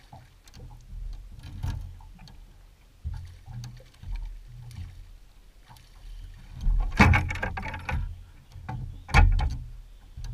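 Water splashing as a landing net is dipped into the lake and a hooked bass is scooped up beside the boat, with two louder splashing bursts in the second half over low knocks and rumbles of handling.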